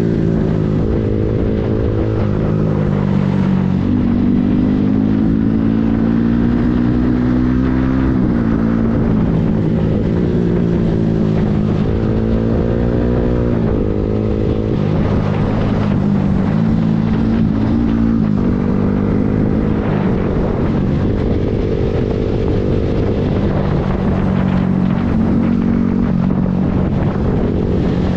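Yamaha MT-15's single-cylinder engine through an Akrapovic full-system exhaust, heard on board under hard riding: the revs climb through the gears and drop sharply at each shift or roll-off for a corner, several times over, with wind rushing over the microphone.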